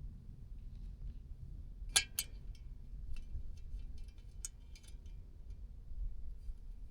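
Small hard parts of a windmill drummer ornament clicking and tapping against each other as they are handled and fitted together: two sharp clicks about two seconds in, then a run of lighter clicks and taps with a brief ring.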